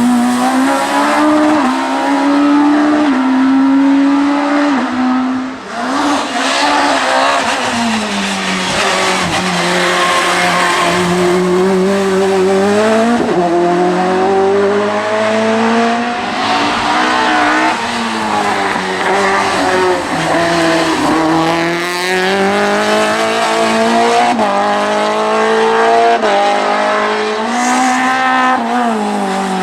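Hill-climb race car engine running hard for the whole stretch. Its pitch climbs and drops back many times as the driver shifts and lifts for corners, with a brief lift about six seconds in.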